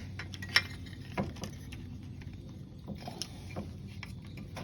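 Scattered light clicks and taps of hands working the metal tabs and parts of a bait vending machine's power box, bent back to free the power supply, over a faint steady low hum.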